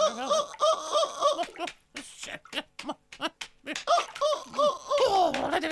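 High-pitched cartoon giggling, quick runs of short 'he-he-he' syllables, with a few sharp clicks in a pause midway and a falling vocal cry near the end.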